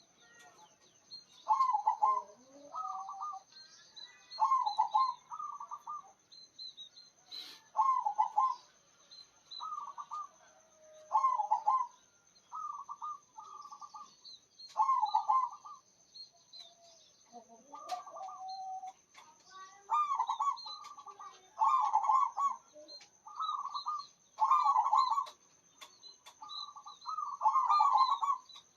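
Zebra dove (perkutut) singing its loud, rhythmic cooing song, short coo phrases repeated every second or two.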